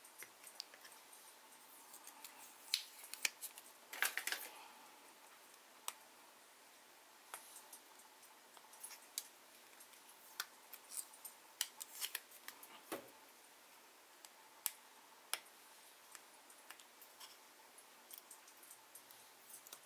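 Fingernails picking and scratching at the protective paper backing on a clear acrylic stamping block: faint, irregular small clicks and scratches of nail on acrylic and paper, bunched together about four seconds in.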